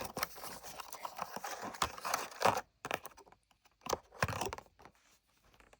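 Kailh White Owl V2 clicky keyboard switch pressed by hand, giving a series of sharp, snappy clicks, with rustling handling noise in the first couple of seconds.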